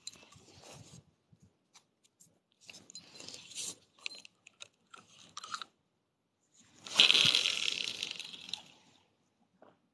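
Spinning rod and reel being handled close to the microphone: scattered rustles and clicks, then a louder rushing noise that starts sharply about seven seconds in and fades over about two seconds.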